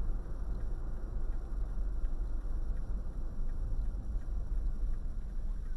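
Steady low rumble of a car driving, with engine and tyre noise heard from inside the cabin through a dashcam microphone.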